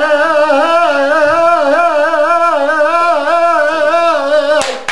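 A man singing unaccompanied, holding long wavering notes with rapid ornamented pitch turns. He breaks off near the end as hand-clapping starts.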